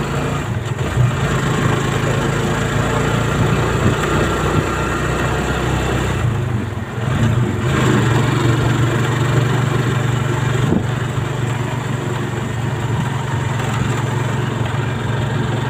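A vehicle's engine running steadily while travelling along a road: a low, even drone with a rushing noise over it, dipping briefly about seven seconds in.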